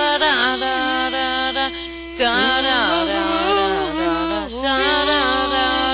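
A woman singing wordless melodic runs, long held notes that slide and bend in pitch, with a brief dip about two seconds in.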